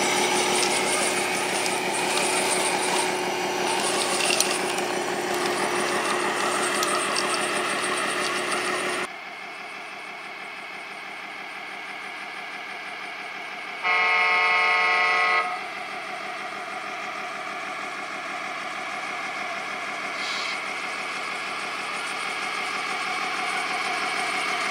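Four-motor electric RC semi truck running close up, a dense motor-and-gear whine with a steady tone, until it cuts off abruptly about nine seconds in. Then comes a quieter, even rush of water as the truck wades through a creek. Around halfway, one steady truck air-horn blast lasts about a second and a half.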